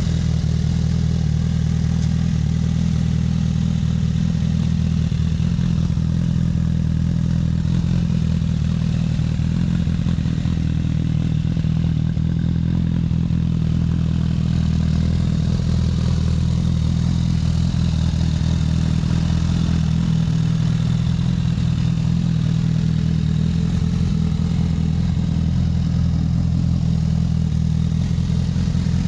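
Honda CBR1000RR Fireblade's inline-four engine idling steadily through an aftermarket Akrapovic exhaust, with an even, unchanging low note.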